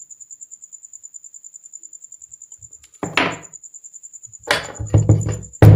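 Sharp knocks and clunks of tools and ceiling-fan parts being handled during rewiring of the fan's terminals, four of them in the second half, the last the loudest. Under them a faint high-pitched pulsing trill, about ten pulses a second.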